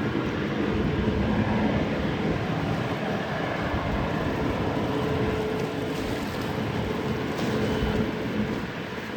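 General Electric GE90-115B jet engines of a taxiing Boeing 777-300ER running at low thrust: a steady rumble with a faint steady tone running through it.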